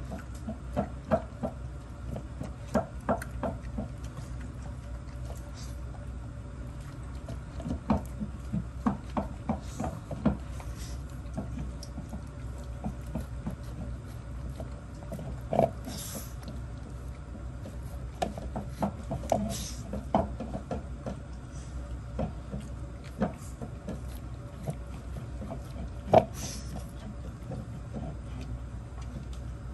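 Shih Tzus eating dry kibble, snuffling and crunching, with many short, irregular clicks of kibble and teeth.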